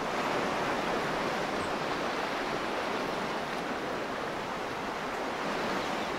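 Small waves washing onto a sandy beach: a steady hiss of water.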